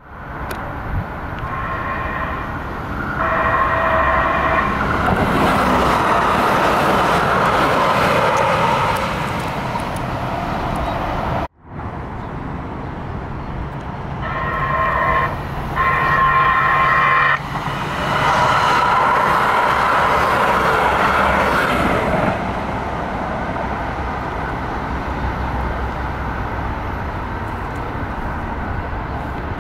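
LA Metro light rail train sounding its horn, two blasts, then running loudly through a grade crossing; the pattern comes twice, with a short break in the sound about eleven seconds in.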